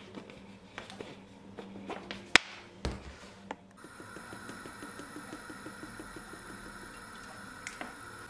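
Plastic bottle cap being twisted and the PET bottle handled: sharp plastic clicks, one loud, then a dull thud. About four seconds in, cooking oil pours from a plastic bottle into a frying pan with soft rapid glugging over a steady hiss.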